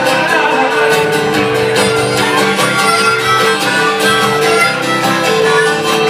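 Live band playing an instrumental break with no singing: a strummed acoustic guitar under a held, repeating melody line on a string instrument.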